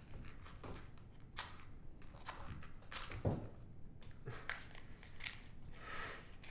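Scattered small clicks, crackles and scrapes of tableware and food being handled at a dinner table, with one louder dull thump about three seconds in.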